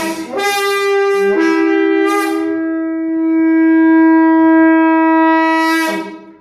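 Conch shell (shankha) blown: a couple of short notes in the first second or so, then one long steady note held for about four and a half seconds, cutting off near the end.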